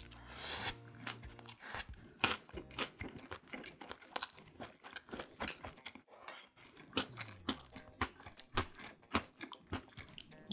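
Close-miked biting into and chewing a mouthful of gimbap (seaweed-wrapped rice roll): a steady run of many short, wet crunching clicks.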